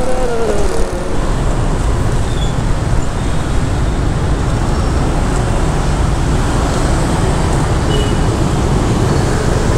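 Steady road and traffic noise heard from a motorbike riding through city streets, a constant low rumble.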